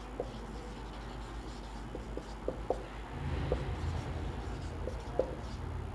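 Marker pen writing on a whiteboard: scattered short squeaks and taps of the felt tip as letters are written, over a low hum that grows louder about three seconds in.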